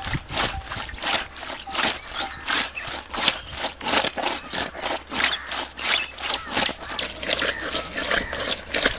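A whole rohu fish being scraped back and forth by hand against a rough stone slab to strip its scales: a rhythmic scraping, about two to three strokes a second.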